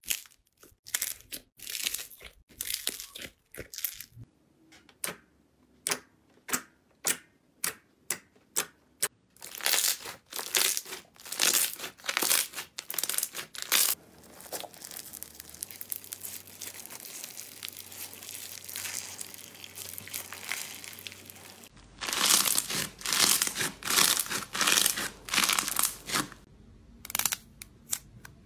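Hands squeezing, cracking and peeling slime- and clay-coated squishy toys and a foam-bead ball, with crackling, crunching and tearing. Early on there is a run of sharp, evenly spaced clicks, about two a second. In the middle stretch a fine steady crackle runs for several seconds, and rhythmic crunching bursts return near the end.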